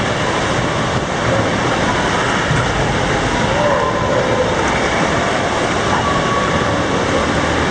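Steady rushing noise of a tour boat under way, engine and water together, with faint voices in the background.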